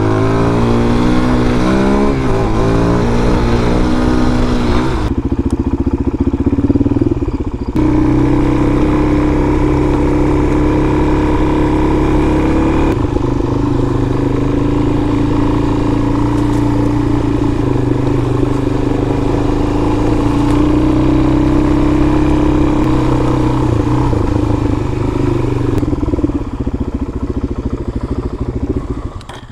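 Single-cylinder four-stroke dual-sport motorcycle engine (Suzuki DR-Z400) running under way. Its pitch climbs in repeated steps in the first few seconds as it shifts up through the gears, then holds fairly steady, and it fades right at the end.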